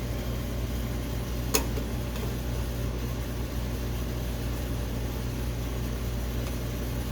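Metal lathe running with a steady hum while turning down a shaft, with a single sharp click about one and a half seconds in.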